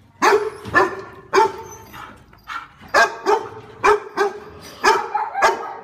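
Dog barking repeatedly: about ten sharp barks in a loose, uneven rhythm, roughly two a second.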